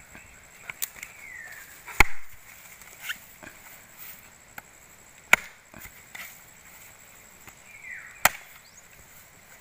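Chopping with a blade: three heavy strokes about three seconds apart, with lighter knocks between them.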